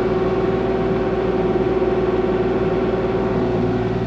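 Kubota KX40-4 mini excavator running steadily, heard from inside the cab: a constant engine and hydraulic hum with one strong steady tone.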